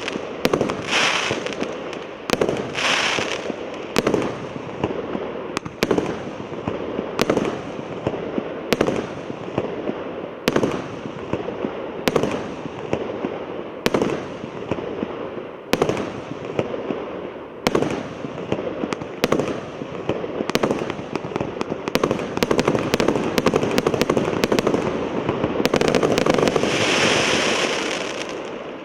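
A 'Medovy Mesyats' (Honeymoon) fireworks battery firing its shots one after another, a bang about every one to two seconds over continuous crackling. Near the end a louder, sustained crackling rush builds, then fades away.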